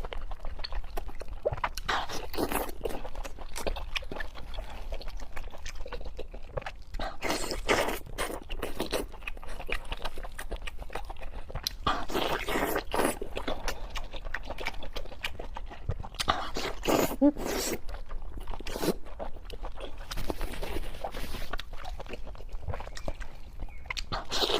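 Close-up eating sounds of a person chewing and biting sweet and spicy pork with green vegetables: irregular crunchy bites and chewing.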